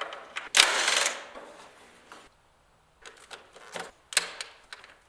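Clicks, knocks and clatter of hand tools and intake parts being handled under the hood, with one loud rattling clatter about half a second in that dies away over a second, then scattered lighter knocks.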